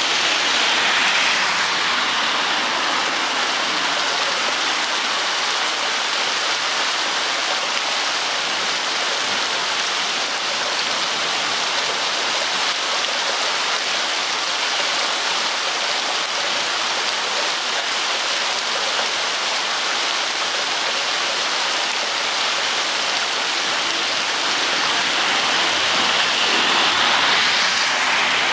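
Steady rain falling: an even hiss of water. It swells slightly about a second in and again near the end.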